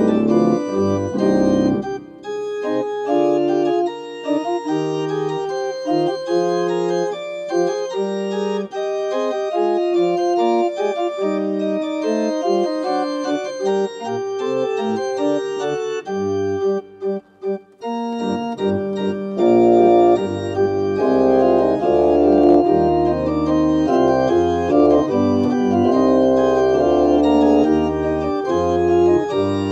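Church organ playing held chords. The low pedal bass drops out after about two seconds and comes back in about two-thirds of the way through, and the sound grows fuller and louder from there.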